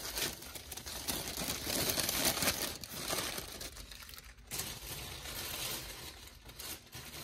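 Tissue paper crinkling and rustling irregularly as a small package is unwrapped by hand.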